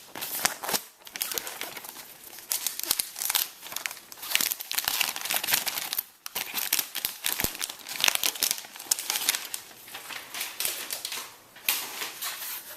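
Packaging wrap being crinkled and torn off a new tablet keyboard dock by hand: irregular crackling and rustling, with a short pause about halfway through.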